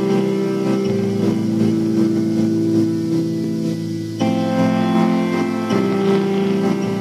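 Instrumental music with held chords that change about four seconds in and again near six seconds.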